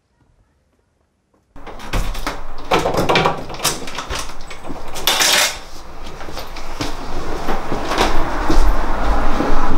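Household handling noise that starts suddenly about a second and a half in: a string of knocks, clicks and clatter, with a short hiss about five seconds in.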